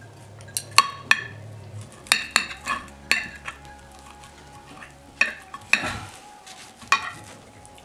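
Steel knife and fork clinking and scraping against a plate while cutting food, in irregular sharp clicks and short scrapes.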